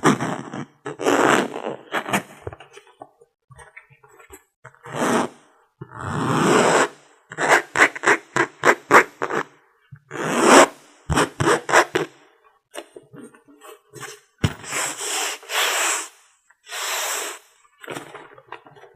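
ASMR makeup-prop sounds close to the microphone: a string of scrapes, rubs and taps, with a quick run of about five or six clicks a second partway through and longer brushing strokes near the end.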